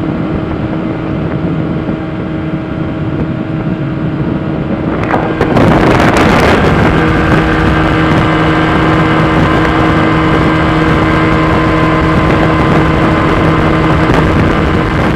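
Yamaha 25 hp outboard motor driving an inflatable boat at speed, running steadily, with wind on the microphone. About six seconds in there is a brief rush of noise, and after it the engine runs louder.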